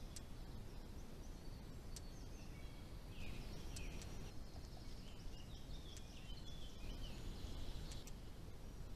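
Small birds chirping and whistling in short phrases, busiest in the middle and latter part, over a steady low background rumble, with a few faint clicks.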